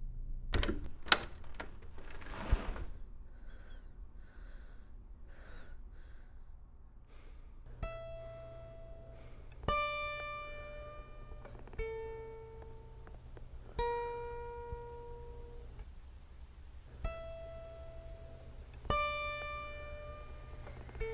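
Sparse plucked-string notes of a film score, one single note about every two seconds, each ringing and fading, starting about eight seconds in. Before the music, a few sharp knocks and a short burst of noise come in the first three seconds.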